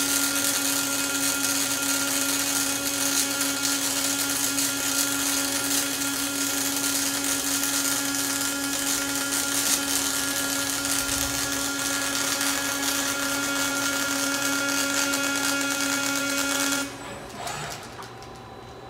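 Robot welding torch's arc running in a steady hiss with a constant buzzing tone, then cutting off abruptly about 17 seconds in as the weld is finished.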